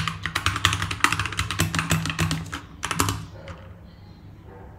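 Computer keyboard typing: a fast run of key clicks for about three seconds, then the keystrokes stop, leaving a faint low hum.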